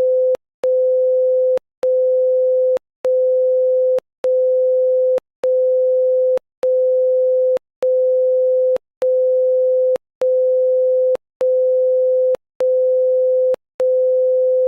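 Emergency alert alarm tone: a single steady electronic tone pulsing on and off, each beep about a second long with a short gap between, and a click as each beep starts and stops.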